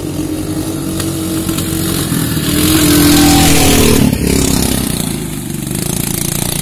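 Quad bike (ATV) engine coming closer and revving, growing louder to a peak about three to four seconds in, then its pitch drops as it passes; engines of other quads keep running at low speed afterwards.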